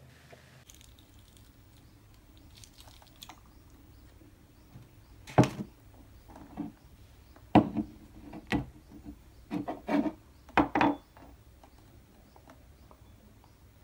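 Tabletop handling noises: a handful of sharp knocks and clatters as a ceramic cup and a sauce bottle are picked up and set down, with light rubbing between them.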